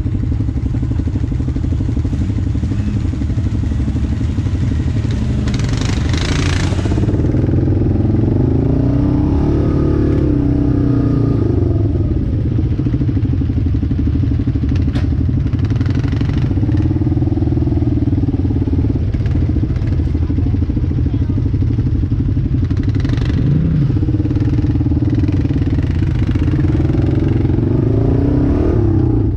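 ATV engine running close by at idle and low trail speed, a steady rumble with the pitch rising and falling a few times as the throttle is blipped.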